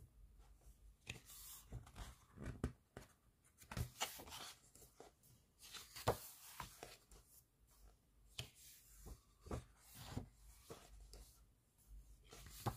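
Pages of a large photobook being turned and handled: paper rustling and sliding, with short sharp taps at irregular moments throughout.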